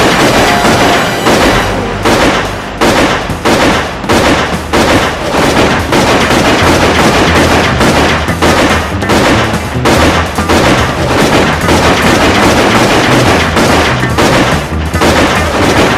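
Pistol gunfire in a shootout: shot after shot in quick succession, about two a second, loud throughout.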